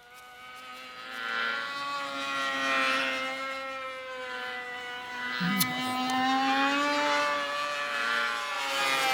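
A steady buzzing drone that fades in over the first second and a half and then holds, wavering gently in pitch.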